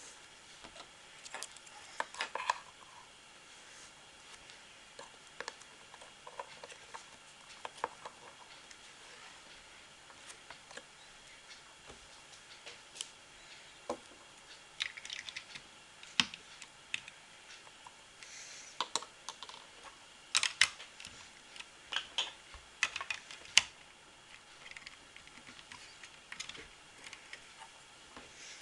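LEGO bricks clicking and tapping as they are handled and pressed together, in an irregular run of light plastic clicks that is busiest in the second half.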